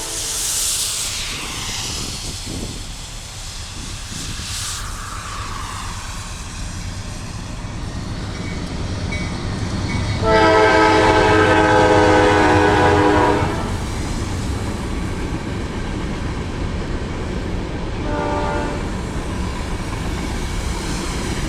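Diesel freight locomotives hauling a grain train, with a steady low rumble throughout. The locomotive horn sounds one long blast of about three seconds about ten seconds in, the loudest sound here, and a short toot near the end.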